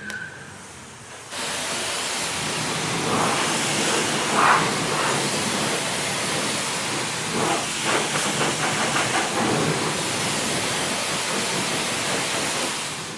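Self-service car wash high-pressure water wand spraying a car: the spray starts suddenly about a second in and runs as a loud, steady hiss, with brief changes in tone as the jet moves over the car, before it cuts off at the end.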